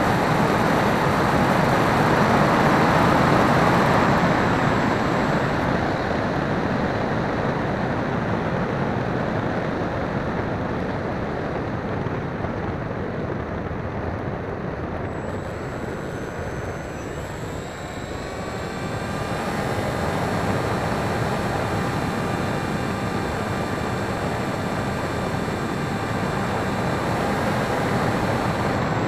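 Onboard sound of a Hobbyking Breeze model plane in flight: wind rushing over the microphone, heaviest in the first few seconds, with the electric motor and propeller running. A little past halfway the motor's whine rises in pitch, then holds steady.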